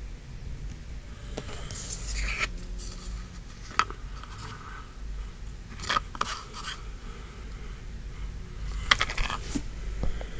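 Handling sounds of small hard objects being moved about on a table: scattered sharp clicks, taps and scrapes, the loudest about four and six seconds in and a quick cluster near nine seconds, over a low rumble of the camera being handled.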